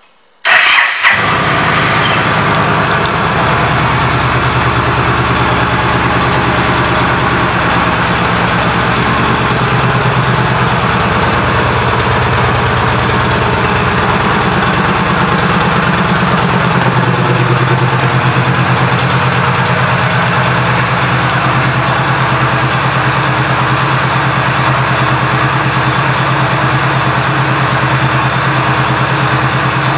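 2013 Yamaha Stryker's 1304 cc V-twin, fitted with aftermarket exhaust pipes, starts about half a second in and settles into a steady idle.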